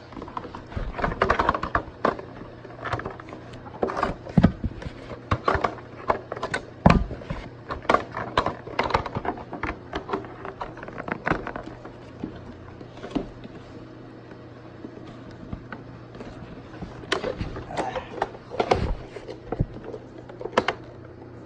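Irregular plastic clicks and knocks of a Roomba e6 robot vacuum's dustbin and filter being handled and pushed shut, with a quieter stretch in the middle. The bin won't close because the filter is not seated right.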